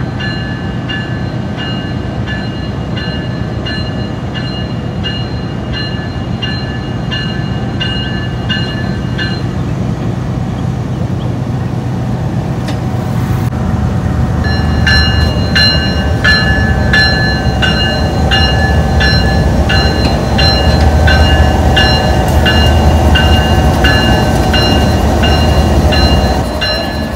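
General Electric GEU-20 diesel-electric locomotive running as it moves slowly, its engine a steady low hum that grows louder in the second half. Over it, a high metallic ringing repeats roughly twice a second, pausing for a few seconds in the middle.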